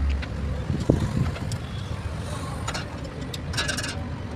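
Light metallic clicks and knocks of hand tools working at a truck's propeller-shaft universal joint, a scattered few with a quick cluster about three and a half seconds in, over a low steady background rumble.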